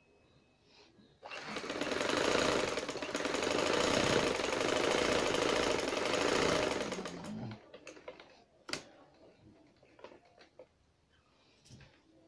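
Sewing machine running a straight seam along a narrow 1-inch fabric strip: it starts about a second in, runs steadily for about six seconds, then stops. Scattered light clicks and handling knocks follow as the fabric is adjusted.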